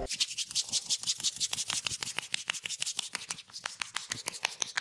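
Barber's hands working a head and neck massage: a rapid run of sharp clicks and taps on skin and hair, about ten a second.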